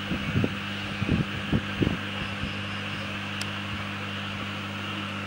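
Steady electrical hum with hiss over it from a running homemade FM transmitter setup. A handful of low knocks come in the first two seconds.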